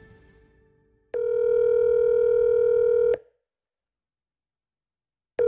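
Ringing tone of a phone call being placed: a steady ring of about two seconds, a pause of about two seconds, then the next ring starting at the very end. Before the first ring, the last of the intro music fades out.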